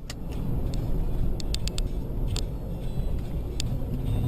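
Steady low rumble of a car on the move as picked up by a dash cam, with a scattering of short sharp clicks.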